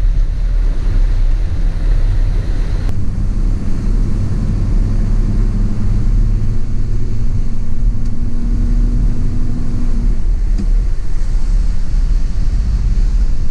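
A moving vehicle's steady low rumble of engine and road noise, with a steady hum that comes in about three seconds in and stops about ten seconds in.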